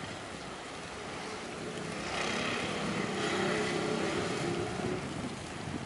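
A vehicle passing by, its engine drone swelling about two seconds in and easing off about five seconds in.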